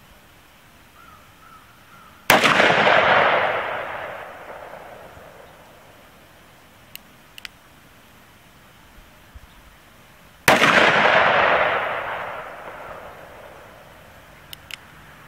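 A revolver fired twice, about eight seconds apart; each shot is a sharp crack followed by a rolling echo that fades over about two seconds. Faint paired clicks come in between the shots and again near the end.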